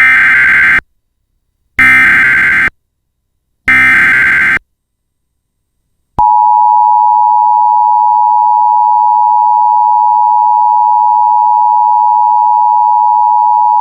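Emergency Alert System alert opening: three short bursts of SAME digital header data, each a buzzing warble under a second long, about two seconds apart. About six seconds in, the steady two-tone EAS attention signal begins and holds.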